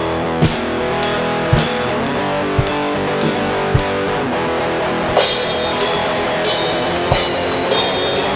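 Song played on a drum kit over sustained backing chords: steady drum hits about once a second, with cymbal crashes coming in about five seconds in.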